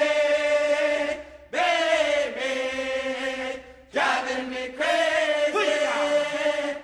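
Background music: powwow group singing, voices chanting in long held phrases with short breaks about a second and a half and four seconds in.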